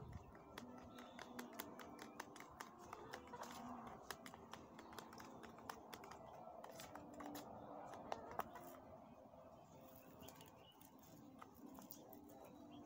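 Small kitchen knife cutting by hand: faint, irregular clicks and light scrapes of the blade through the food and against the cutting surface.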